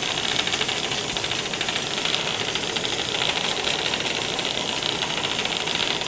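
A swarm of Hexbug Nano vibrating toy bugs buzzing and clattering on a tabletop, a steady dense rattle of rapid fine clicks, with the remote-controlled Hexbug Strandbeast's small motor and legs running among them.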